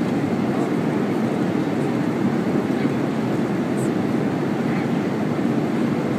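Steady, even rushing noise of a jet airliner's cabin in flight, from the engines and the airflow over the fuselage, heaviest in the low range.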